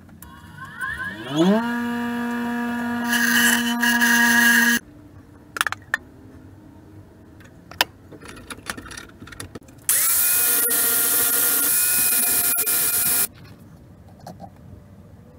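An electric power tool's motor winds up with a rising whine about a second in, then runs at a steady pitch, with a loud harsh rasp as it works metal for the last couple of seconds before it stops abruptly. A few scattered clicks and knocks follow, then a second power-tool run, a steady whine with a loud rasp, lasts about three seconds.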